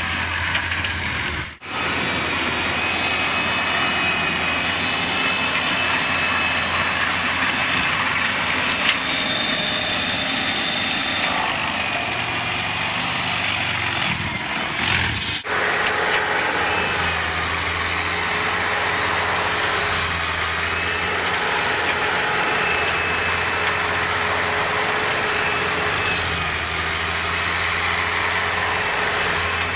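Antonio Carraro SRH 9800 tractor's diesel engine running steadily under load while driving a mera MFA1200 PTO forestry mulcher through undergrowth and soil. The drone breaks off abruptly about a second and a half in and again about fifteen seconds in, then carries on.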